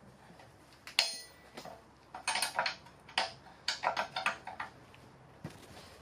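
Pipe grips clanking and clinking against the steel parts of a classic Mini rear subframe while working a seized part loose: one sharp ringing clank about a second in, then a quick run of metal clinks and knocks.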